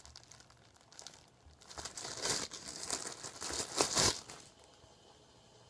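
Plastic packaging crinkling in several short rustling bursts as a squishy toy is handled in its wrapper, loudest about four seconds in.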